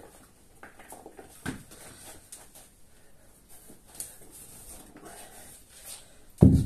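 Hard breathing and soft shuffling during a kettlebell swing with a 53 lb kettlebell and resistance band, then a heavy thud near the end as the kettlebell is set down on the rubber floor mat.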